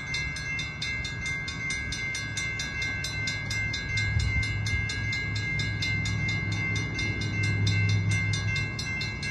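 Railroad grade-crossing bell ringing rapidly and evenly, about four strikes a second, while the crossing gates come down. Under it a low rumble grows louder from about four seconds in.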